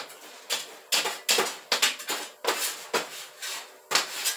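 Metal popcorn scoop scraping across the metal floor of a popcorn machine's cabinet and tipping popcorn into a large stainless steel bowl: a string of irregular scrapes and clatters, several a second.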